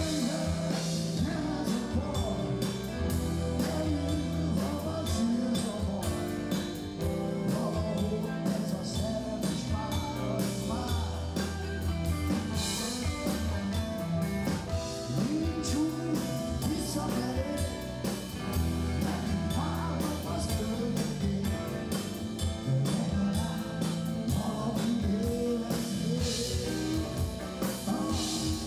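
Live rock band playing: a man sings in a smoky voice over electric guitar, bass guitar, drums and keyboards.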